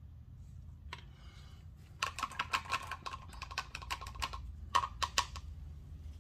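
A short scrape, then a rapid run of light, sharp clicking taps lasting about two seconds, followed by three more clicks a little later, like keys being typed.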